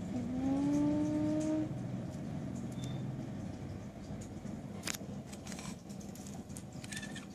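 Small plastic building bricks clicking against each other and onto a hard tile floor as a hand sets them out, a few sharp clicks from about five seconds in. Under it runs a steady low hum, and near the start there is a brief held tone rising slightly in pitch.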